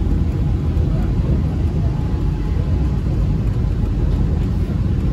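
MRT Yellow Line monorail train running between stations: a steady low rumble.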